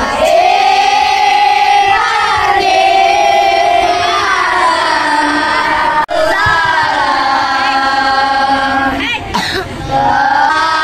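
Children's choir singing together in unison, holding long notes that slide between pitches, with a brief break about six seconds in.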